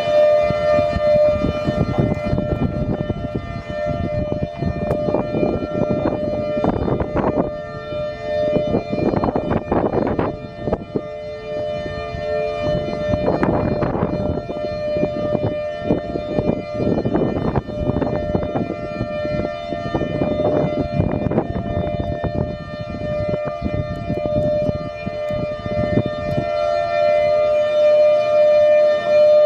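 Federal Signal Thunderbolt 1000 warning siren sounding a steady full-alert tone, echoing off surrounding buildings. The rotator is broken, so the tone holds in one direction instead of sweeping; it grows weaker through the middle and stronger again near the end. Uneven low rumbling noise runs under it.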